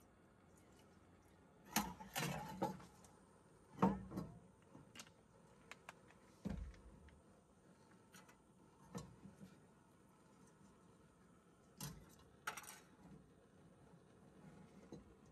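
Metal camp cookware handled on a table: scattered clinks and knocks of a small pot, mug and lids, the loudest about four seconds in.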